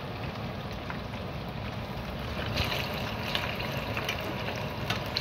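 Hot oil sizzling and bubbling steadily around battered catfish nuggets deep-frying in a pan, with a few sharper crackles from about halfway through.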